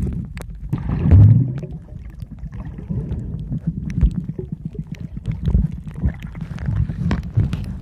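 Muffled underwater sound: low rumbling water movement with scattered clicks and crackles, swelling loudest about a second in.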